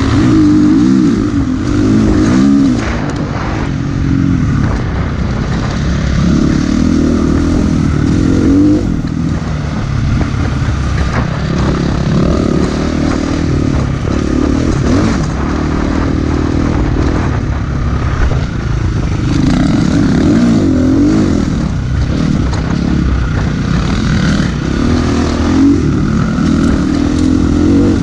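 Husqvarna FE350's single-cylinder four-stroke engine, fitted with an uncorking kit, pulling a dirt bike along a trail. Its pitch rises and falls repeatedly as the throttle is opened and eased off, with rumbling wind noise over the camera microphone.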